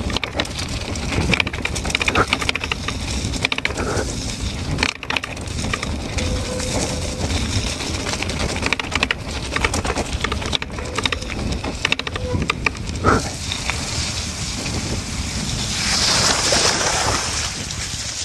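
Mountain-bike tyres crunching over a rough gravel and dirt track, with steady irregular clicks and rattles from the bike's front and rear mudguards shaking on the bumps. The hiss grows louder near the end as the track turns wet and muddy.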